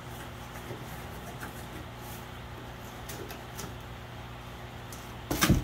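Cardboard box being opened: flaps and a cardboard insert scraping and rustling as they are handled and pulled out, with a louder bump near the end, over a steady low hum.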